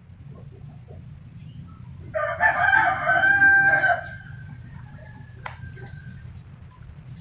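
A rooster crows once, a loud call of about two seconds a couple of seconds in, over a faint steady low hum. A single sharp click comes a little later.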